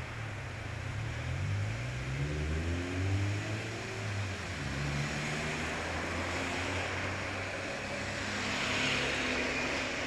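Street traffic: vehicle engines running and accelerating, their pitch rising over the first few seconds. Near the end a car passes closer with a swell of tyre hiss.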